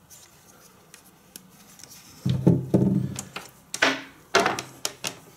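Handling noise from cables and packaging moved about on a wooden tabletop. It is quiet at first, then about two seconds in comes a run of knocks, rubs and scrapes.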